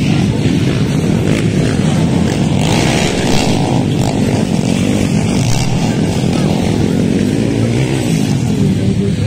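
Motocross dirt bike engines running and revving on the track, rising and falling in pitch as the riders work the throttle.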